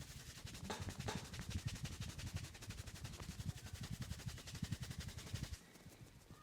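Fast rhythmic hand tapping of a massage, about ten strokes a second, stopping suddenly about five and a half seconds in.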